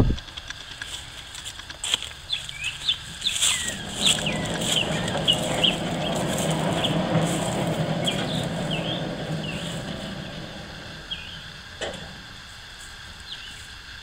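A sharp knock right at the start, then small birds chirping again and again over the running engine of an HM126 portable band sawmill, which swells up around the middle and fades away again.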